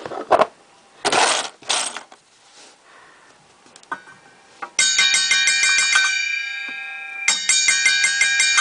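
A steel circular saw blade struck rapidly over and over with metal wrench pliers, ringing like an electric bell's hammer on its gong, with several clear ringing tones. The strikes pause about six seconds in, leaving the blade ringing and fading, then start again. Before this come a few loud bursts of noise with no ringing.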